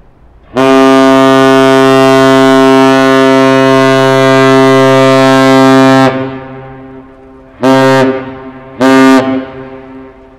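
The American Century's pilothouse-mounted Kahlenberg Triton KPH-130C air horn, a deep 130 Hz ship's whistle, sounding a captain's salute: one long blast of about five and a half seconds, then two short blasts about a second apart, each dying away with an echo.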